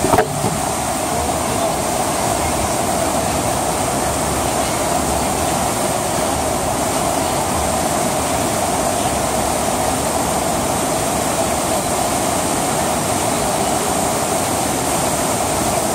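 Steady rush of a thin sheet of water pumped at speed over a FlowRider surf simulator's ride surface, with a short bump right at the start.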